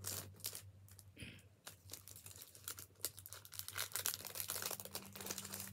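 A white chocolate bar's wrapper being handled and torn open: a steady run of crinkles, rustles and small tearing clicks.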